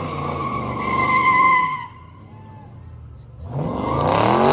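Car spinning donuts: the engine is on high revs and the tyres squeal steadily. The driver lifts off about two seconds in, then the engine revs back up near the end.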